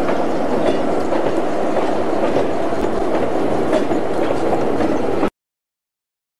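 Freight train's railcars rolling across a timber trestle: a steady rumble with occasional faint clicks of wheels over rail joints. The sound cuts off abruptly to silence about five seconds in.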